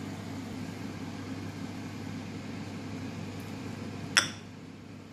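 Sweet and sour sauce, thickened with cornstarch, simmering in a frying pan over a gas burner while it is stirred with a wooden spatula: a steady low rushing noise. One sharp clink rings out about four seconds in.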